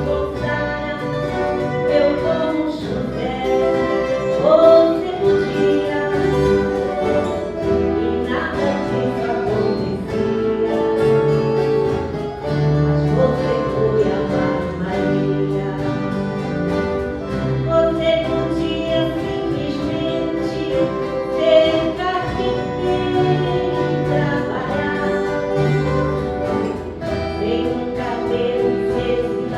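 An ensemble of viola caipira players (ten-string Brazilian folk guitars) plays a slow song while voices sing the melody.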